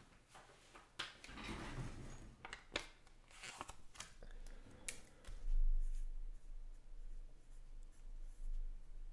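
Trading cards being handled and flipped through: soft rustling and sliding with a few light clicks, then a low rumble from about five seconds in.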